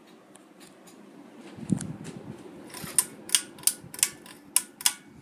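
Harbor Breeze Springfield II ceiling fan running with a low hum. In the second half come about six sharp clicks, roughly three a second.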